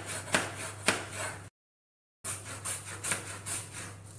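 Kitchen knife slicing on a plastic cutting board, a sharp knock with each stroke: tomato first, then, after a short dead-silent break, red onion. A faint steady low hum underneath.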